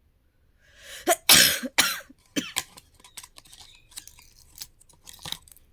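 A woman coughing: a fit of several hard coughs about a second in, then a few faint clicks. It is a cough she has had for several days that medicine has not cleared.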